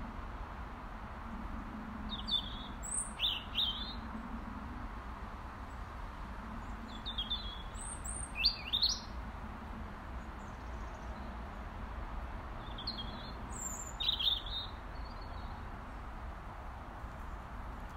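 Robin calling: three short bursts of quick, high notes about five seconds apart, over a steady low background hum.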